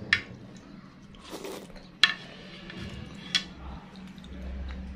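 Spoon clicking sharply against the bowl three times while eating es campur, a mixed iced dessert in milk, with a short wet slurping sound about a second and a half in.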